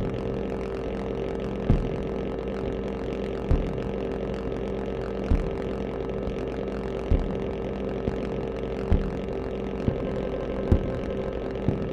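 An installation of 72 electronic oscillators sounding together as a dense drone of held tones. A low thump pulses through it about every two seconds, with fainter pulses in between.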